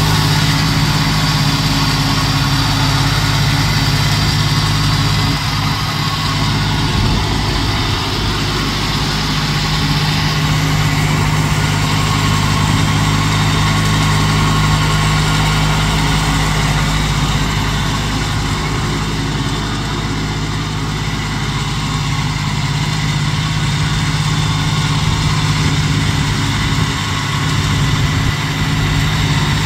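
1987 Huskee garden tractor's engine running steadily while the tractor is driven across grass.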